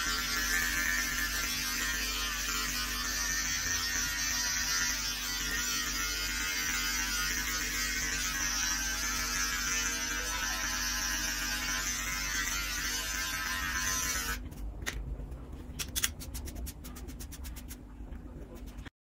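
Electric hair clippers buzzing steadily as they cut short hair at the back of the head. About 14 seconds in the buzzing stops and quick scratchy strokes of a hairbrush through the short hair follow, until the sound cuts off abruptly.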